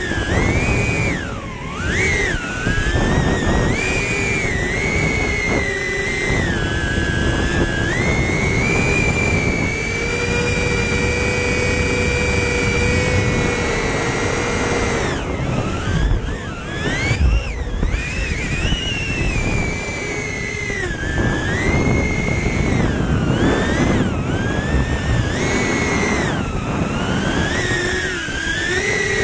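DJI Avata FPV drone's motors and propellers whining, the pitch swinging up and down with the throttle through freestyle manoeuvres and dropping sharply about a second and a half in and again around the middle.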